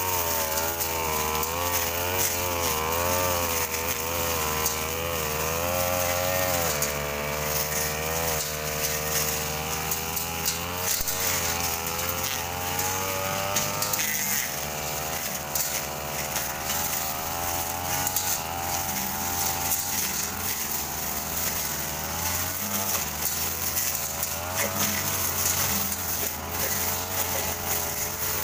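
Backpack brush cutters running as they mow weeds and grass. The engine pitch rises and falls in waves as the blade is swung back and forth, over a steadier hum from a second machine working further off.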